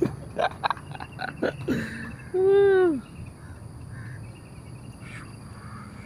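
A run of short knocks and taps, then one loud pitched call, about half a second long, that rises and falls in pitch. Outdoor background follows, with a few faint chirps.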